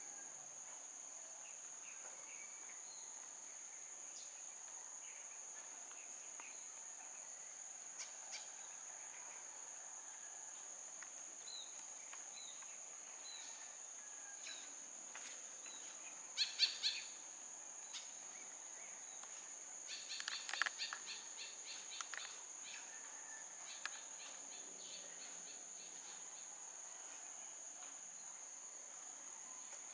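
Steady, high-pitched insect drone, with a few short bursts of bird chirps, the loudest a bit past halfway and again about four seconds later.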